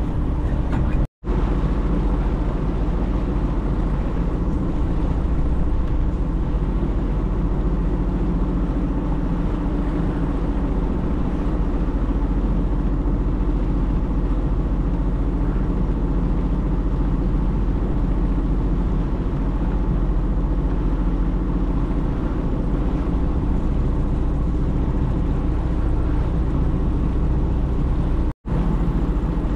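Sea-Doo personal watercraft engine running steadily, a constant drone, broken by two brief moments of silence, about a second in and near the end.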